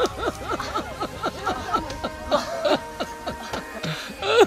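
People laughing in a run of short, quick bursts.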